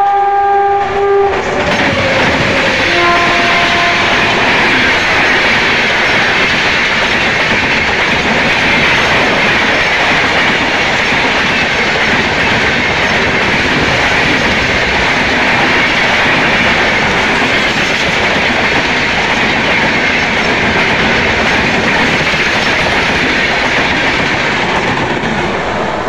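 Locomotive horn sounding a chord that cuts off about a second in, with a brief second horn note about three seconds in. Then a passenger train running past close by at speed: a loud, steady rush of wheels on rails with a clickety-clack.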